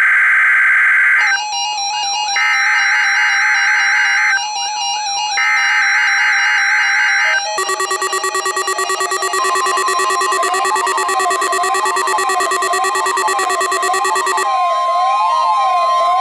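NOAA Weather Radio SAME alert header: three loud bursts of screeching digital data tones, each about two seconds long with short pauses between, marking the start of the Required Weekly Test. Electronic music is mixed over it, and after the third burst it goes on as synth tones that warble up and down in pitch with a fast pulse.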